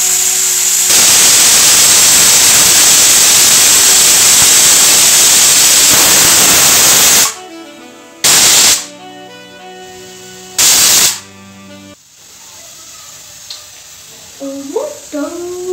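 Aluminium stovetop pressure cooker whistling: steam hisses loudly from the weighted vent for about six seconds, then blows off in two short bursts about two seconds apart. The whistles show the cooker is at full pressure, boiling the carrots, and are counted until the 3 to 4 called for.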